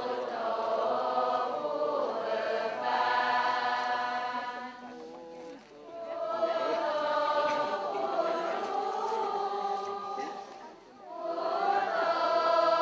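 A crowd of voices chanting together in unison, Buddhist devotional chanting in long held phrases, with brief breaks for breath about five and eleven seconds in.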